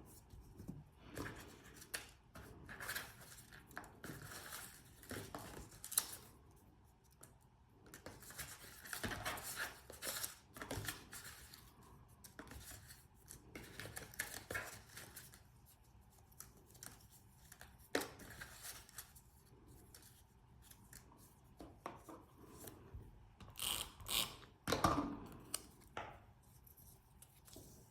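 Scrapbook paper pieces being handled: irregular rustling, sliding and short crisp snips of paper, loudest near the end.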